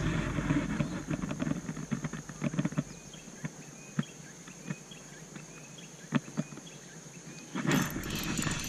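A spinning reel on a fishing rod being cranked in, with irregular light clicks and taps from the reel and rod handling. A steady high insect drone and a few small chirps sit behind it, and a louder rushing noise comes in near the end.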